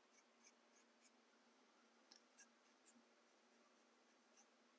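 Near silence, with a few faint, brief scratches of a small paintbrush being dry-brushed over carved foam rock.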